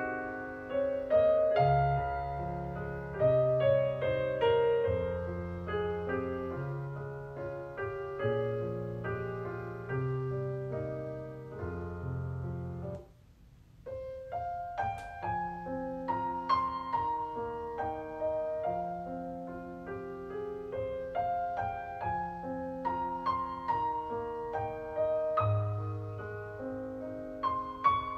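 Background piano music playing held, melodic notes. It breaks off for about a second near the middle, then resumes.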